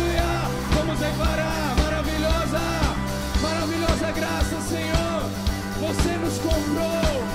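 Live worship band playing a song: a drum kit keeps a steady beat under electric guitars, with a group of singers carrying the melody.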